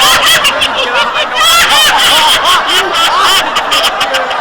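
Loud canned crowd laughter track: many voices laughing at once, cut in abruptly as a sound effect.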